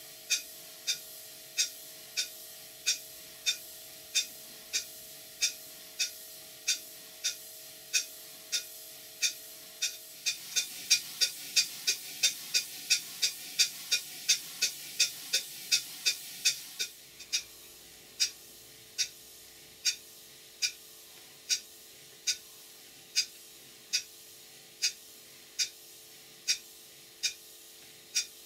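Stuart Major model beam engine running with an even, sharp beat, about one and a half beats a second, with nothing knocking now that its valve timing and parallel motion are set. About ten seconds in it speeds up to about two beats a second, louder and with a hiss, then some seven seconds later drops back to a slower, quieter beat of about one a second.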